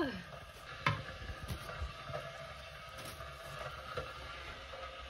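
Scissors snipping through a scented geranium stem: one sharp snip about a second in, followed by a few faint handling clicks over a low steady background.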